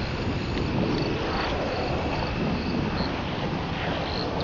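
Crickets chirping in short, evenly repeated pulses over a dense, steady background noise.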